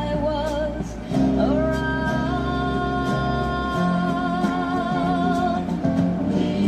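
A song played from a vinyl record through small powered computer speakers: a singer sliding up about a second in, then holding long notes with vibrato, over guitar and bass.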